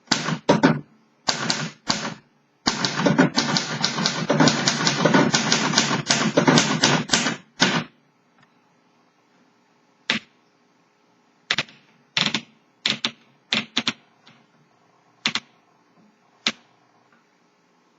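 1950 Royal Companion manual typewriter being typed on: a few key strikes, then about five seconds of fast continuous typing, then single keystrokes spaced a second or so apart near the end.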